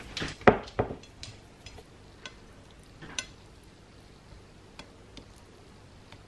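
Shaker can of Creole seasoning shaken over raw shrimp on a plate, a few sharp knocks in the first second with the loudest about half a second in, then scattered soft clicks and taps as fingers turn the shrimp on the plate.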